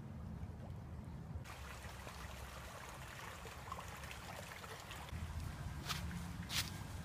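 A shallow stream running, a steady water noise that brightens suddenly about a second and a half in, with a couple of sharp clicks near the end.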